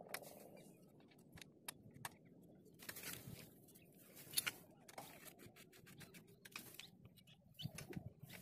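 Faint, scattered clicks and taps of a motorcycle chain cover and its mounting bolt being fitted back on by hand, with one sharper click about four and a half seconds in.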